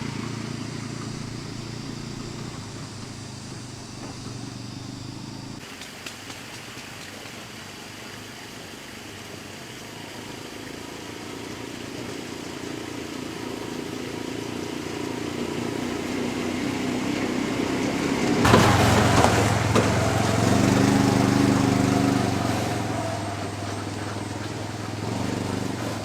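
A small engine running, with a low steady drone that grows louder through the middle and is loudest about two-thirds of the way through, then eases off.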